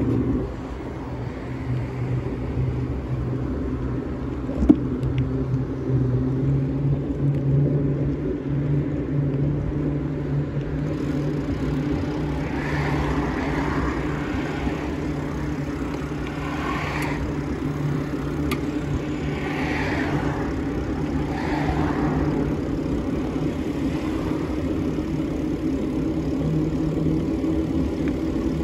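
Road traffic from a queue of slow-moving cars close by, with a steady low hum and rushing noise under it.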